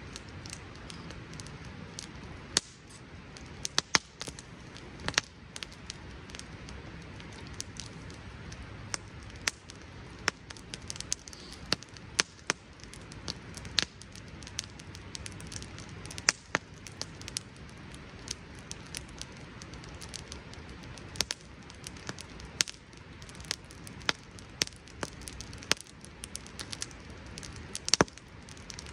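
Campfire of split wood crackling: irregular sharp pops and snaps, a few of them louder, over a low steady hiss of the flames.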